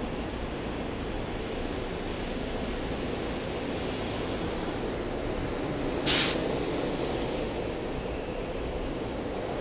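SEPTA Silverliner IV electric commuter train moving past the platform with a steady rumble, and one short, loud burst of compressed-air hiss about six seconds in.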